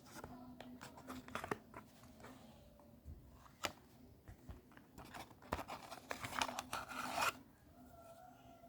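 Packaging being handled and opened during an unboxing: a run of sharp clicks and scraping, rustling handling noises, densest from about five and a half to seven seconds in.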